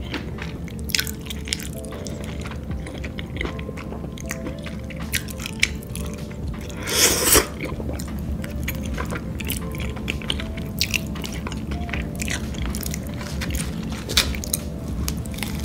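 Close-miked wet chewing and mouth clicks from eating creamy mushroom fettuccine, with a louder half-second burst of mouth noise about seven seconds in, over steady background music.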